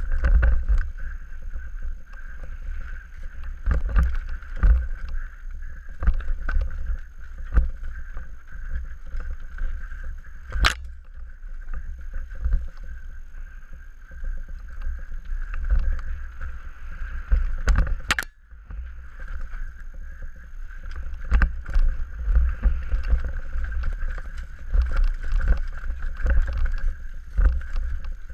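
A Scott Gambler downhill mountain bike descending a rough dirt trail, heard from a helmet-mounted camera. There is a constant rough rumble from the tyres and the bumps, a steady higher whirr, and frequent sharp knocks and clatter as the bike hits the uneven ground, with loud single knocks about ten and eighteen seconds in.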